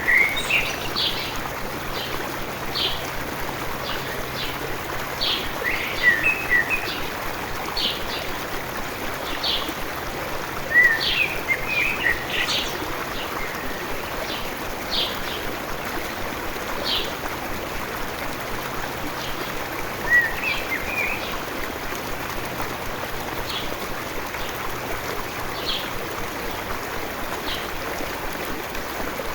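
A stream running steadily, with small birds chirping over it: short high chirps every second or two, and louder bursts of twittering at the start, about six seconds in, around eleven seconds in and around twenty seconds in.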